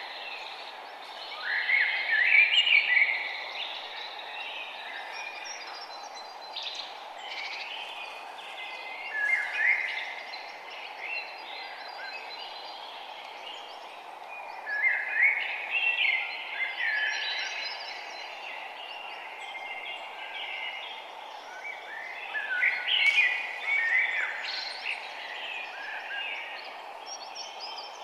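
Forest songbirds singing: a loud, choppy song phrase comes back about every six to seven seconds, with fainter chirps between. Under them runs a steady, even background hiss.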